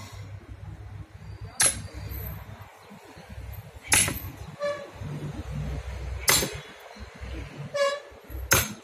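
Hand axe chopping into a log to split firewood: four heavy strikes, about two seconds apart, each with a sharp metallic clink.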